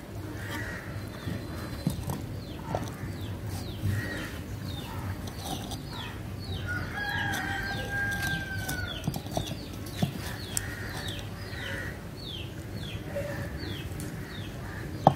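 A rooster crowing once, a long, level call about seven seconds in, over repeated short chirps of birds. A few light knocks of small clay pots being handled.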